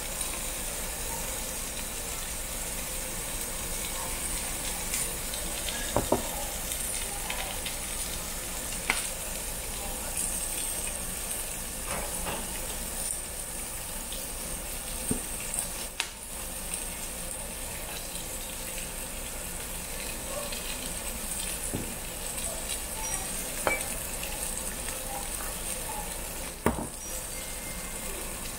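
Thick slab of pork belly sizzling steadily on a slotted griddle plate over a charcoal fire, with a handful of sharp pops scattered through.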